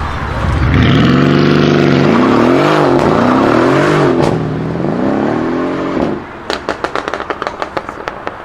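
Twin-turbo V8 of a 700 hp RENNtech-tuned Mercedes CLS63 AMG being revved hard, the engine note rising and falling several times. The revs drop about six seconds in into a rapid string of exhaust crackles and pops.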